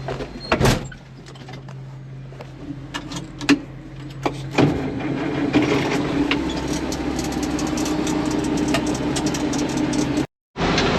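International Harvester 1586 tractor's diesel engine running, with a sharp knock just under a second in. About four and a half seconds in the engine note picks up and then holds steady and louder; the sound drops out briefly near the end.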